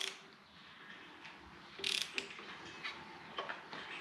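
Socket ratchet on the crankshaft pulley bolt of a Toyota 1UZ-FE V8 clicking as the crank is turned back by hand with the timing belt removed. The clicks are faint and irregular: a short cluster about two seconds in, then a few single clicks near the end.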